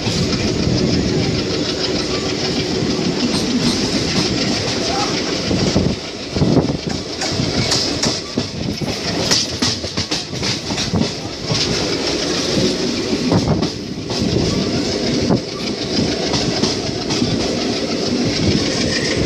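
Indian Railways passenger coach running along the track, heard from its open window: steady rolling noise with the wheels clicking over rail joints and points, the clicks coming thickest in the middle stretch as the coach crosses a set of switches.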